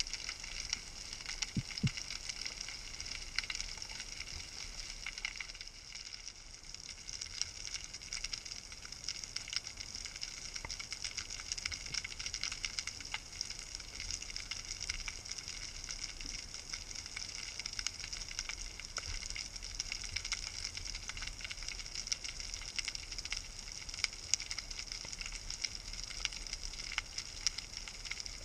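Underwater reef crackle: a steady, dense patter of fine clicks, the snapping-shrimp noise of a rocky reef, heard underwater.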